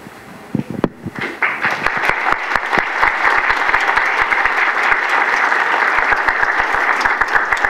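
Audience applauding, beginning about a second in and continuing steadily.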